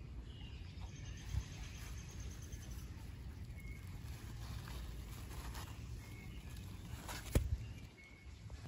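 Quiet outdoor garden ambience: a steady low rumble on the microphone with a few faint short high chirps, and one sharp tap a little after seven seconds in.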